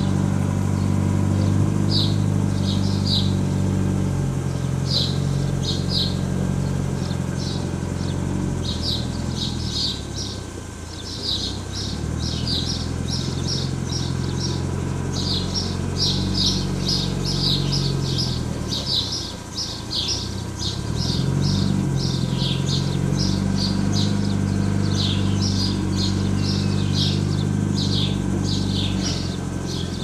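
A motor engine running at a steady pitch, which fades away twice and comes back. Over it, birds chirp in quick short notes throughout.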